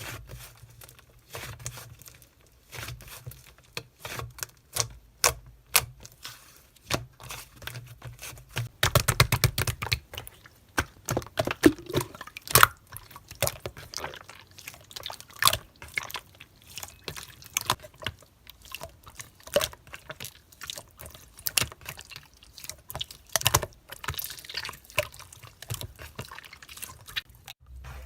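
Slime being handled and mixed: an irregular run of sticky, wet clicks and pops, which crowd together for about a second around a third of the way in.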